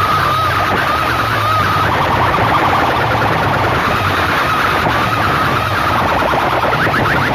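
A bank of horn loudspeakers and box speakers blaring a distorted electronic siren-like effect at full volume: a warbling tone over a steady low bass hum. Near the end it changes to a fast run of short rising whoops.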